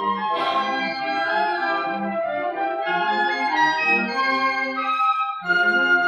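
Instrumental ensemble music: several wind-like parts holding sustained chords over a moving lower line. The lower parts drop out briefly about five seconds in, then the ensemble comes back louder.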